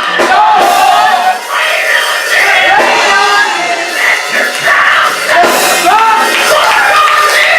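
Loud church music with voices shouting and singing over it, the congregation's worship in full swing.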